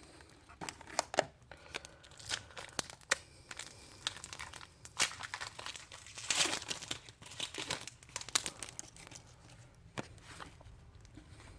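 A trading-card pack's wrapper crinkling and tearing while cards are handled, in irregular sharp rustles that are thickest about halfway through.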